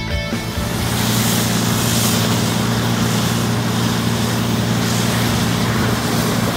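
High-pressure hydroblasting rig running steadily, its engine humming under the hiss of water jets blasting the old acrylic coating off a concrete court.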